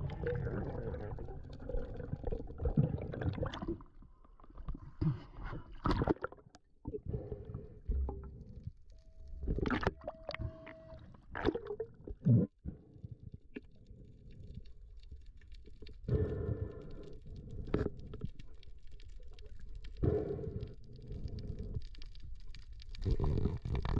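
Muffled underwater water noise as heard through a submerged camera: gurgling and bubbling that swells and fades, with several sharp knocks in the middle.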